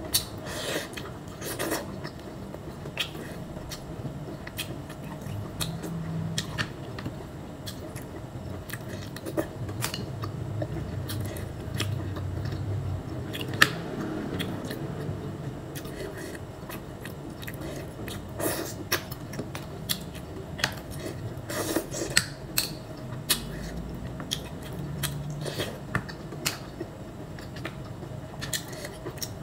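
Close eating sounds of green mussels in a saucy dish: chewing and sucking the meat from the shells, with frequent sharp clicks of the shells against each other and the plate.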